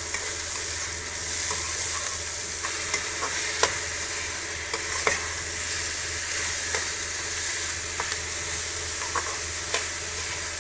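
Chopped vegetables and peas sizzling in oil in a metal kadai while being sautéed. A slotted spatula stirs them, giving irregular scrapes and clicks against the pan.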